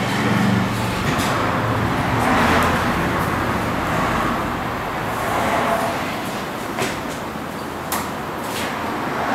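Jeep Wrangler rock crawler on large off-road tyres being pushed by hand across a concrete floor with its engine off: steady rolling noise from the tyres and chassis, with two short sharp knocks near the end.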